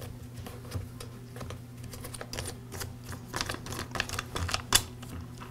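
Plastic air filter cover of an Echo SRM-225 string trimmer being unscrewed and worked off by hand: a run of small, irregular plastic clicks and taps, with one louder click near the end.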